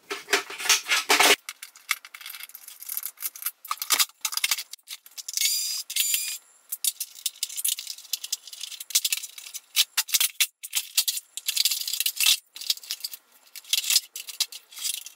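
Rapid, dense clicking and rattling of plastic housing parts and screws as an upright vacuum cleaner is taken apart by hand, sped up with the time-lapse. A few short high whines come through now and then.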